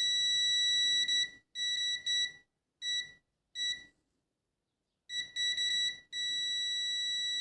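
Multimeter continuity buzzer beeping in one steady high tone as the probes touch the leads of the removed horizontal output (THT) transistor. There is one long beep, several short broken ones, then a held beep from about six seconds in. Each beep signals a short circuit: the transistor is shorted across all three leads.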